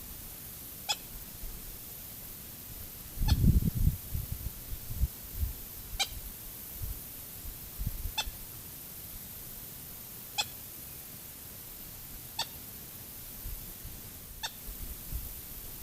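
A moorhen calling from thick brush: seven short, sharp calls, evenly spaced about every two seconds. A low knock or rumble about three and a half seconds in is the loudest sound.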